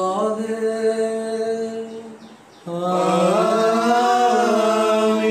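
A priest's voice chanting a prayer of the mass in long held notes: one phrase ends about two seconds in, and after a short breath a second phrase begins.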